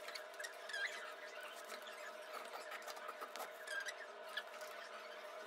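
Twisted cord being pulled through the lacing holes of a handmade prop kotsuzumi drum, giving short scattered squeaks and rustles of cord rubbing on cord and rim, over a steady faint hum.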